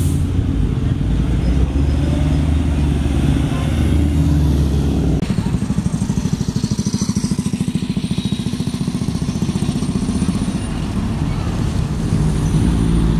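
Diesel engines of single-decker buses in street traffic. One bus runs steadily as it moves off past, then, after a cut about five seconds in, another bus's engine gives a low, even pulsing beat as it draws up and passes close by.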